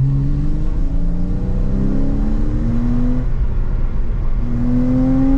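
Porsche Cayman R's flat-six engine heard from inside the cabin under hard acceleration. Its note climbs steadily for about three seconds, breaks off at a gear change, and climbs again about a second later.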